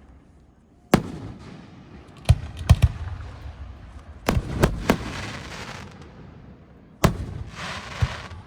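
Large aerial firework shells bursting: about nine sharp bangs, some in quick pairs and triples, each rumbling away, with a crackling hiss after some bursts.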